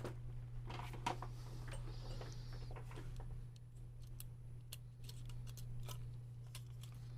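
Faint, scattered small clicks and taps of tweezers working on the plastic parts and connectors of an opened PS5 controller, over a steady low hum.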